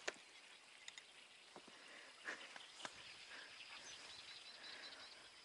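Near silence: faint outdoor ambience over open water, with a few soft, scattered clicks and knocks.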